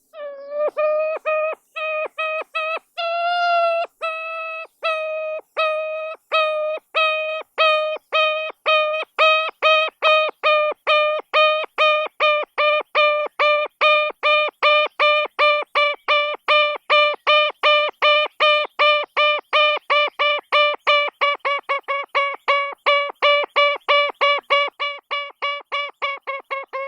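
Ruffed grouse giving a long series of short, pitched call notes. The notes start slow and uneven, then settle into a steady run of about three a second that quickens slightly near the end.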